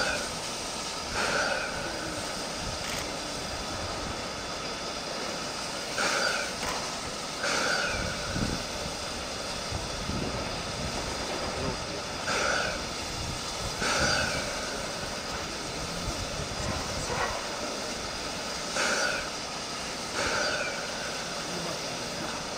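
C11 steam tank locomotive standing with steam up: a steady hiss, with short sharp puffs coming in pairs about a second and a half apart, one pair roughly every six seconds.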